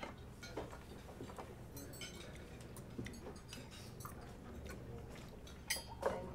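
Dining-room ambience: scattered light clinks and taps of cutlery and dishes over a steady low room hum, with a couple of sharper clinks near the end.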